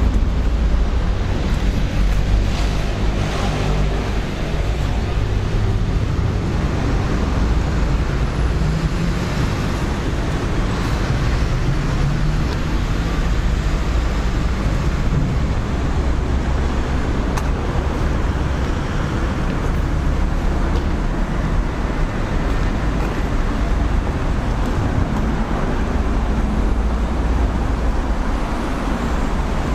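Steady road traffic rumble from the highway overhead and the road beside the footpath, heard inside a concrete underpass.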